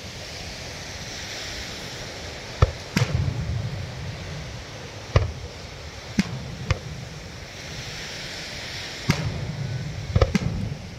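Aerial fireworks shells bursting, about eight sharp bangs at uneven gaps of one to two seconds, several trailing off in a low rumble. Surf washes steadily underneath.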